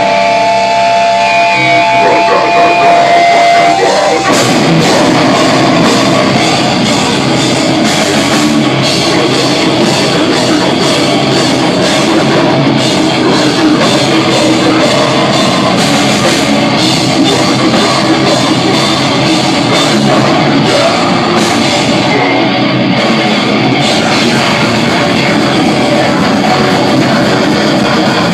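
Loud heavy rock music. A few held guitar notes ring for the first few seconds, then drums and guitars come in together about four seconds in and play on steadily.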